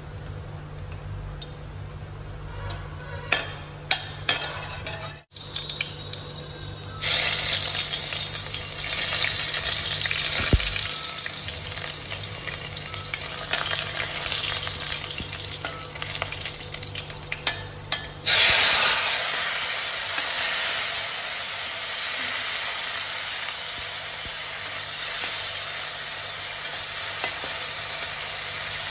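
Hot oil sizzling in a stainless steel kadai as ingredients are dropped in and stirred with a steel spatula. First a few clicks of the spatula against the pan, then loud sizzling starts about seven seconds in. It jumps louder again near eighteen seconds as chopped tomatoes go into the oil, then settles to a steady sizzle.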